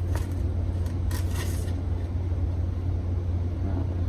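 A steady low hum, with a few brief soft rustles about a second in, likely from handling the plant.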